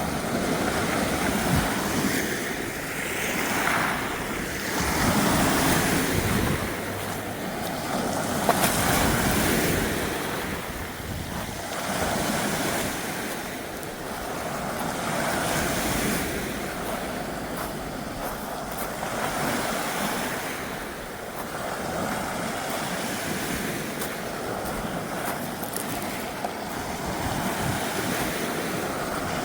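Ocean waves washing in and drawing back on the shore, the surf swelling and fading every few seconds, with wind noise.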